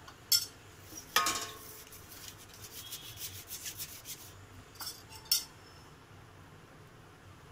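Perforated metal steamer plate clinking and scraping against a metal pot as it is set in place. A sharp clink comes first, then a ringing clank about a second in, then a few seconds of light scraping and small knocks, and two more sharp clinks around five seconds in.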